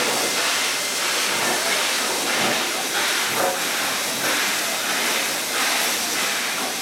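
NSW 36 class steam locomotive 3642 moving off slowly, a steady hiss of steam that swells faintly about once a second.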